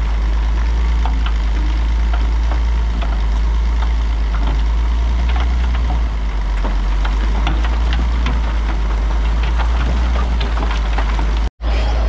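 Heavy diesel earthmoving equipment running steadily with a deep rumble, with scattered clanks and knocks over it. The sound cuts out for a split second near the end.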